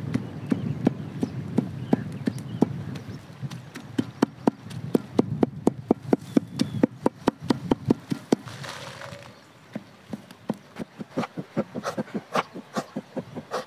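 A cleaver chopping and mincing raw chicken on a wooden log block, steady knocks about four a second. About nine seconds in, this gives way to a kitchen knife chopping onions on a wooden board, knocks at much the same rate over less background noise.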